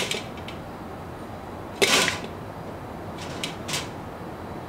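Handling noise from metal parts of a Jumbo Joe kettle grill being fitted together: one sharp clatter about two seconds in, then a couple of light clicks about a second later.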